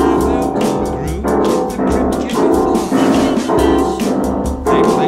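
Acoustic upright piano being played: a repeating figure of chords in the middle register, a new chord struck about every half second and left to ring.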